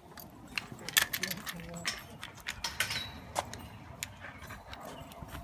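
Irregular clicks and rattles of a dog leash's metal clip and plastic retractable-leash handle as the leash is unclipped from a harness.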